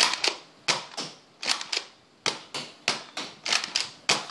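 Nerf Rough Cut 2x4 pump-action dart blaster being pumped and fired over and over, loaded with Whistler darts: a quick, uneven run of a dozen or so sharp plastic clacks and pops.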